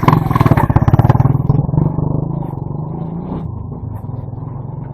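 A motor vehicle's engine running with a rapid, even pulsing, loudest in the first couple of seconds and then easing off.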